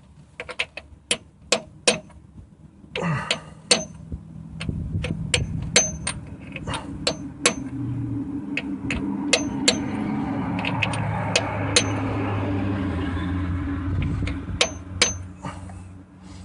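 Hammer strikes on metal, many sharp irregular knocks with a short ring, typical of new steel cup freeze plugs being driven into a Jeep 4.0 straight-six engine block. A steady low hum rises underneath about four seconds in and fades near the end.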